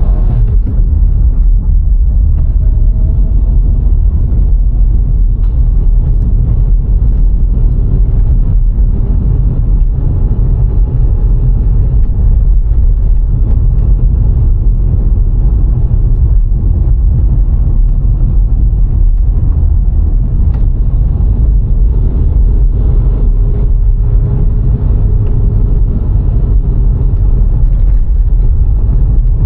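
VW Golf IV 1.6 driving along a road: a loud, steady, deep rumble of tyres and wind, with the four-cylinder petrol engine's hum underneath, its pitch drifting gently. A few light knocks come through, about 5, 10 and 20 seconds in.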